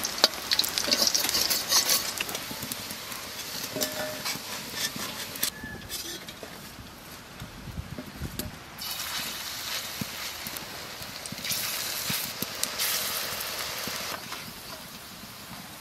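Pumpkin fritters in gram-flour batter frying in hot oil in a steel karahi, sizzling, the sizzle swelling and easing at intervals. A metal spatula scrapes and clicks against the pan as the fritters are turned.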